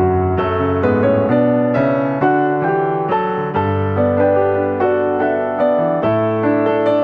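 Background piano music: a slow, gentle melody over chords, notes struck at a steady pulse of about two a second.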